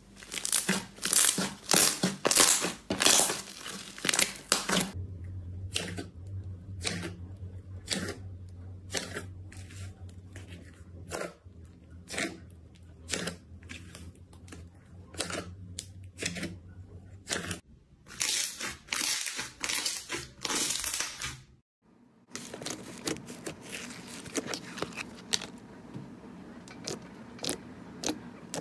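Hands pressing, kneading and poking slime, making repeated sharp sticky crackles and squelches, roughly one a second. A low steady hum sits under the middle part. After a brief drop-out about three-quarters through, the crackle turns finer and denser as a different slime is handled.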